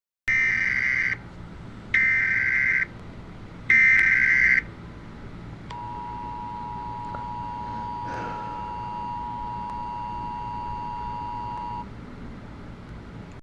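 Emergency Alert System header: three short, loud blasts of buzzing SAME data tones about a second apart. Then comes the two-tone attention signal, a steady dual-tone beep held for about six seconds, which announces that an emergency alert message follows.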